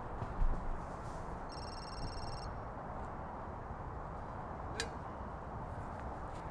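A phone ringtone sounding once, briefly, about a second and a half in, over steady outdoor background noise; a short high chirp comes near the end.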